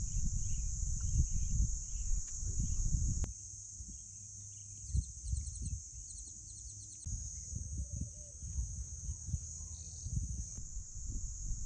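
Rural outdoor ambience: a steady high-pitched insect drone, uneven low rumbling noise, and a few short bird chirps in a quick series partway through.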